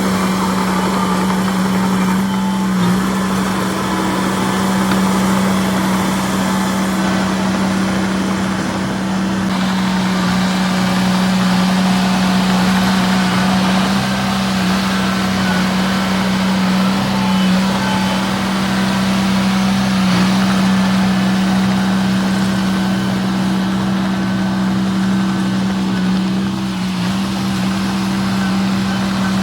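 Diesel engine of a construction machine running at a steady speed, a constant drone with one strong unchanging pitch.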